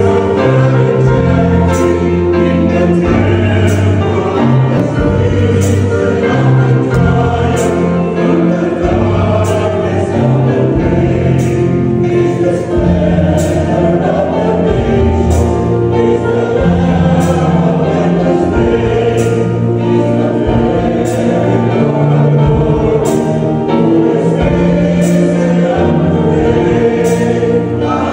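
Choir singing a gospel-style Christian song with instrumental backing and a steady beat.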